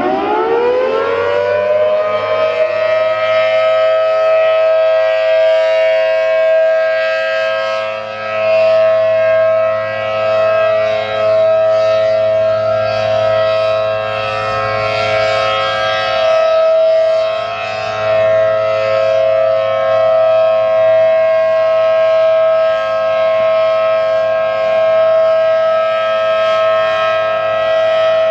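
ACA Allertor 125 outdoor warning siren with a 10/12 rotor, finishing its wind-up with a rising pitch over the first few seconds. It then holds a steady two-note alert tone. The tone swells and fades every few seconds as the rotating horn sweeps past.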